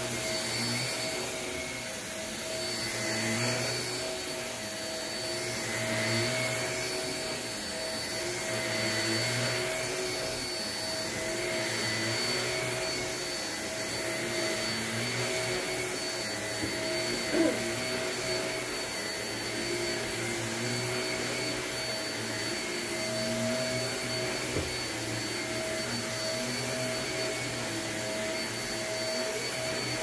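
Upright vacuum cleaner running steadily on a rug, a constant motor hum with a whine, swelling and easing every few seconds as it is pushed back and forth. One short click about two-thirds of the way through.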